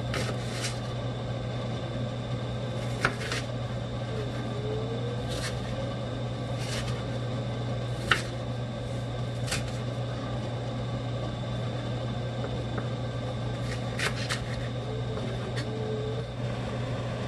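Chef's knife slicing spring onion on a bamboo cutting board: a dozen or so sharp knocks of the blade on the wood, spaced irregularly about a second or more apart. A steady low hum runs underneath.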